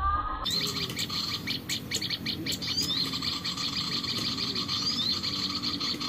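Brown-throated sunbirds (sogok ontong) chirping: a fast run of sharp ticks mixed with short rising whistles, high-pitched, starting abruptly about half a second in.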